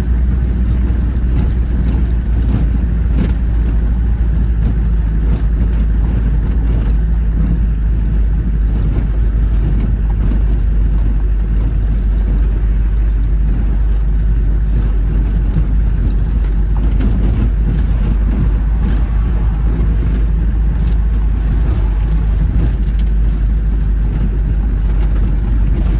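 Car driving at a steady speed, heard from inside the cabin: a steady low rumble of engine and road noise.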